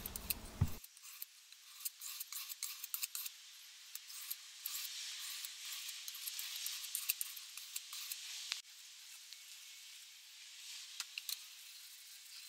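Steel kitchen knife blade scraped in repeated strokes across a sharpening stone: a faint, thin rasping hiss with small clicks, busiest in the middle.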